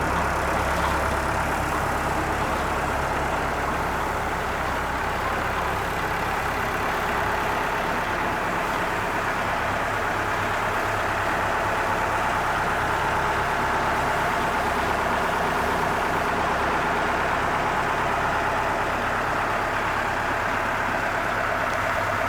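Tractor engine running steadily, driving a Kilworth pan concrete mixer through the power take-off, with the mixer's drive and pan turning. The sound is even and unbroken throughout.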